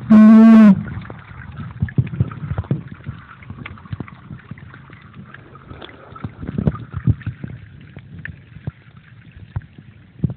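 Muffled underwater-style knocking, crackling and rubbing from a camera sealed in a waterproof pouch while snorkelling: scattered small knocks over a low rush of moving water. It opens with a loud, brief humming tone that lasts under a second.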